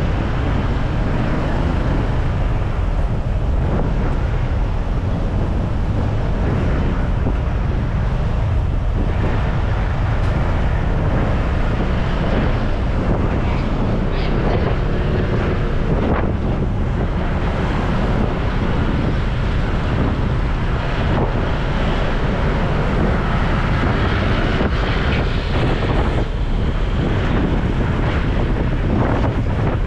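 Steady wind buffeting on the microphone of a camera on a moving Honda PCX 150 scooter, with the scooter's single-cylinder engine and other traffic underneath.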